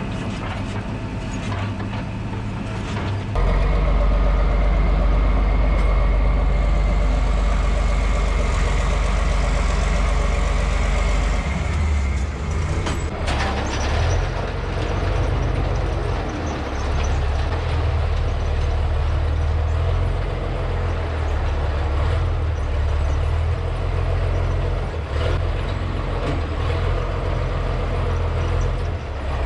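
Farm tractor engine running steadily, driving a Trioliet vertical feed mixer wagon as it mixes and unloads a batch of cattle feed. It gets louder about three seconds in and stays loud.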